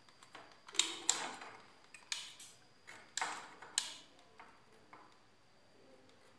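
A handful of light clicks and knocks, each with a short ringing tail, as a small amplifier circuit board and its wires are picked up, turned over and handled on a workbench, most of them in the first few seconds.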